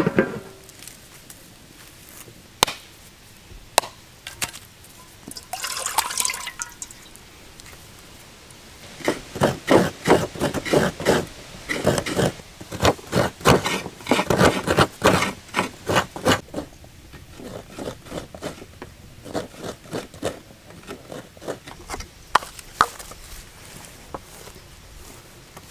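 Coconut halves scraped on a hand coconut scraper: a long run of quick scraping strokes in the middle, with a few sharp knocks before it and sparser strokes after.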